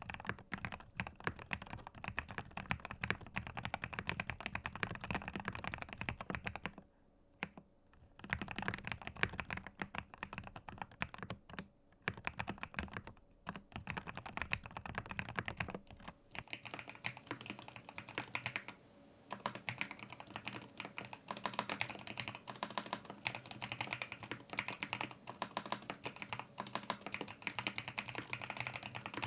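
Fast continuous typing on a GMK67 mechanical keyboard with Gateron G Pro Milky Yellow linear switches in a plastic case, with quick clacking keystrokes and a few brief pauses. The sound is somewhat muffled. A low hum under the typing drops out about halfway, where the recording changes.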